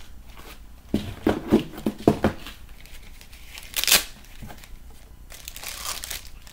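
Plastic packaging crinkling and rustling as items are handled and lifted out of a box, with a few sharp knocks and crackles about a second in and one loud, brief crinkle or rip about four seconds in.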